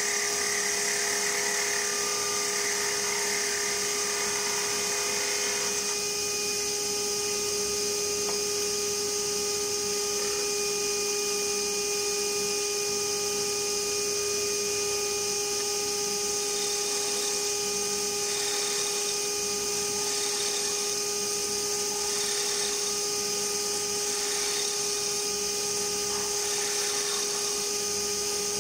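JET wood lathe running at a constant speed, a steady machine whine. For about the first six seconds a rougher noise rides over it, then drops away.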